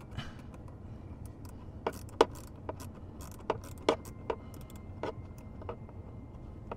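Irregular sharp metallic clicks and clinks of a hand tool working a speaker's mounting screw, about ten in all, the loudest about two seconds in.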